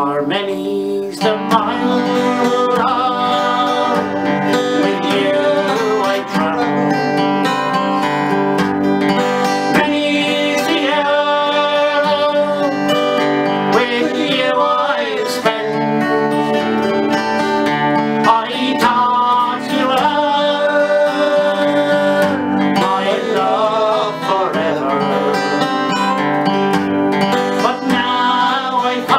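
Two semi-acoustic guitars, a Washburn and a Martin, played together while two men sing an Irish ballad.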